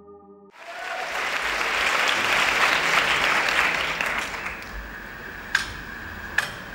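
Theatre audience applauding: the clapping swells up just after a soft synth music sting ends, peaks, and dies away after about four seconds. It leaves a low murmur of the hall with two sharp single claps near the end.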